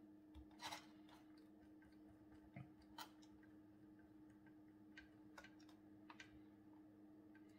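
Near silence broken by a handful of faint, sharp clicks: a small screwdriver and fingers working the tiny drawbar bolt on a model locomotive's chassis.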